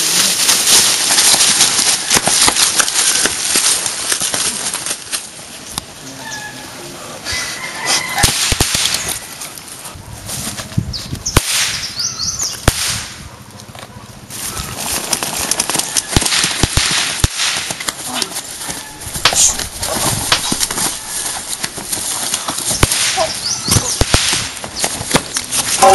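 A rapid run of sharp cracks and bangs, like firecrackers, over a steady rushing hiss. It is loudest in the first few seconds, drops back a few seconds in, and builds again in the second half.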